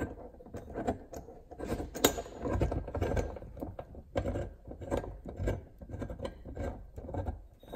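A steel jaw puller being set up on a raw water pump's pulley: irregular metal clicks and clanks as its arms are hooked on and its screw is positioned, one knock louder about two seconds in.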